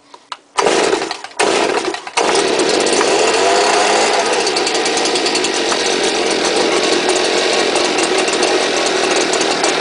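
Stihl BG86 leaf blower's two-stroke engine cold-starting: it fires briefly twice, then catches about two seconds in and runs steadily with the rush of the blower's air.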